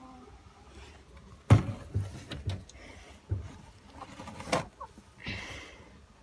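A small hand shovel knocking and scraping on the wooden floor of a chicken coop as droppings and straw are scooped out. There is a sharp knock about a second and a half in, several lighter knocks after it, another loud knock about four and a half seconds in, and a short rustling scrape near the end.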